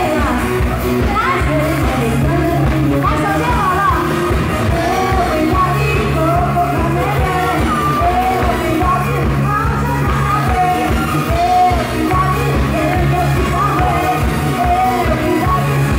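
Live pop band playing with a woman singing lead through a microphone, a steady bass line underneath.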